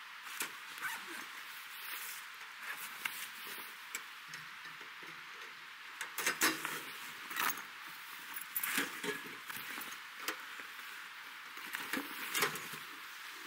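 Rustling and scraping of a nylon carry bag being opened, and a Winnerwell stainless-steel wood stove being lifted out of it. The handling comes in irregular bursts, with louder rustles and knocks around the middle and near the end.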